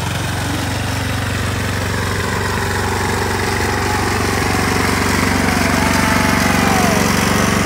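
Ride-on lawn mower's engine running steadily as it drives slowly along, growing slightly louder as it approaches.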